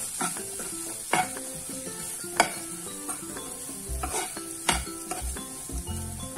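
A steel spoon stirs and scrapes semolina and mixed vegetables around a non-stick frying pan, with a steady sizzle as the semolina dry-roasts over the flame. Now and then the spoon strikes the pan with a sharp click.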